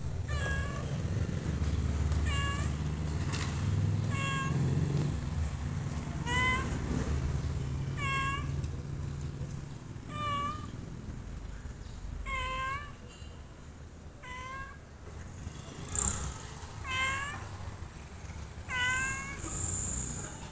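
Domestic cat meowing over and over, about ten short meows roughly every two seconds. A low steady rumble runs underneath during the first half.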